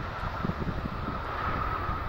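Airbus A330-343's Rolls-Royce Trent 700 turbofans running at low power as the airliner taxis, a steady whine, with gusty wind rumbling on the microphone.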